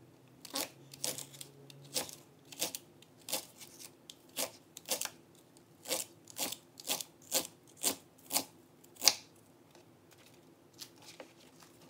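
Kitchen knife slicing a leek crosswise on a wooden cutting board: a steady series of crisp chops about two a second, the last and loudest about nine seconds in, then a few faint taps.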